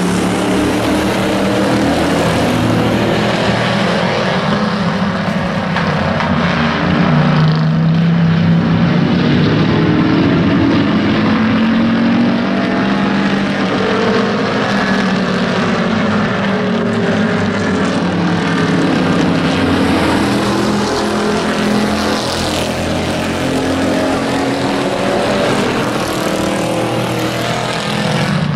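A pack of hobby-class pickup race trucks running laps on an oval track. Several engines are heard at once, their pitches shifting up and down as the trucks accelerate and pass.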